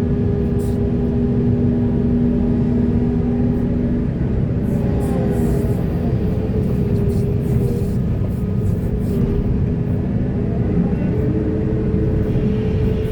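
Heavy earthmoving machinery running: a deep, steady engine rumble with a constant hum, and a higher tone that rises and falls twice.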